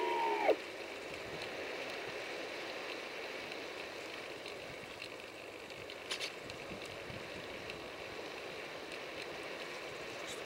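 An RC plane's electric motor whine falls and cuts out about half a second in as the throttle drops to idle, leaving a steady hiss of airflow over the gliding plane.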